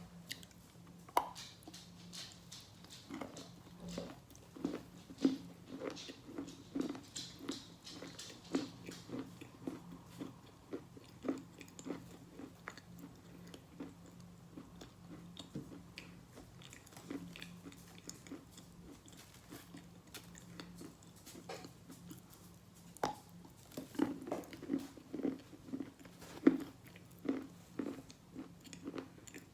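Close-up chewing of wet sawn Khrapovsky edible chalk, crunching in quick runs of several bites a second as it breaks down into mush. A few sharper, louder bites stand out, about a second in and again near the end.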